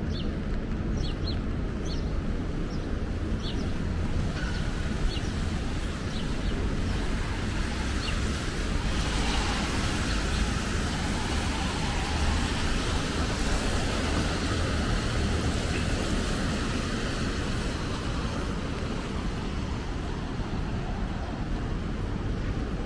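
Steady city street traffic on rain-wet roads: a low rumble of vehicles with a hiss that swells about nine seconds in and eases off after about five seconds.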